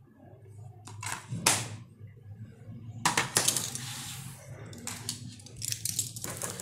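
Plastic DVD case being handled and closed: a series of sharp clicks and clatters, with a longer stretch of rustling in the middle.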